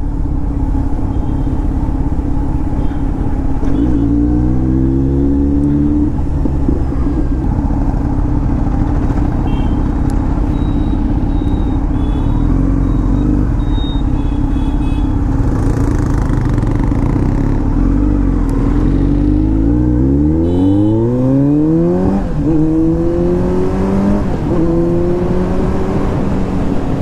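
Kawasaki Z900's inline-four engine through an Arrow aftermarket exhaust, running under way. It revs up briefly about four seconds in, and from about twenty seconds in it accelerates, the pitch rising in several steps as it shifts up through the gears.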